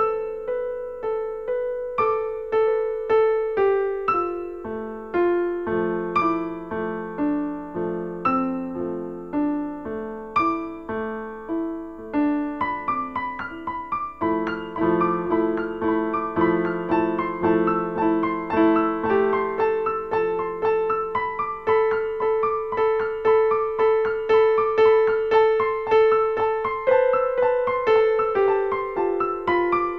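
Piano music with a steady flow of notes and chords that grows busier about halfway through.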